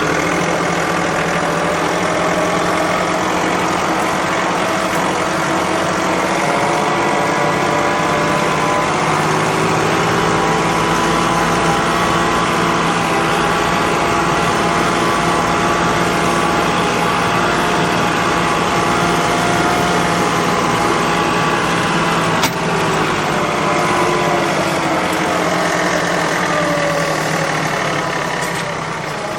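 An engine running steadily at a fairly constant speed, its pitch drifting slowly, with a single sharp click about two thirds of the way through.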